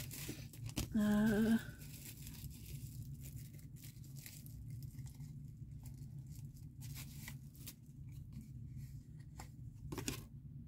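A thin plastic jewellery bag crinkling and tearing as fingers pick at it to free a ring, with scattered small clicks and a sharper click near the end. About a second in, a woman's voice gives a short hum.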